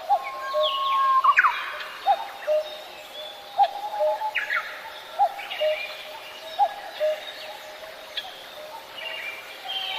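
Birds calling: short rising chirps repeating about once a second, with longer whistled notes and quick high sweeps between them.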